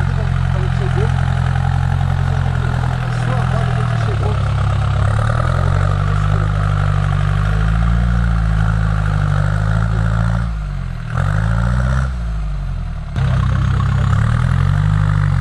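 Off-road 4x4 jeep's engine working at low revs as it crawls through a deep rut, its pitch rising and falling with the throttle. Past the middle the revs drop off and pick up again twice.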